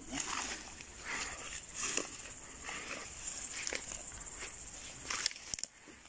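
Conifer branches and needles rustling and footsteps shuffling through forest undergrowth, with a few sharp clicks a little after five seconds, over a steady high chirring of insects.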